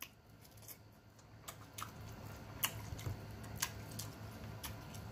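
Close-miked chewing of a bite of fried beef sausage: soft wet mouth clicks and smacks, irregular, about one a second.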